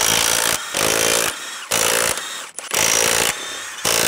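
Power tool with a 21 mm socket spinning lug nuts off a truck's rear wheel, in a series of short runs, each under a second, with brief pauses between.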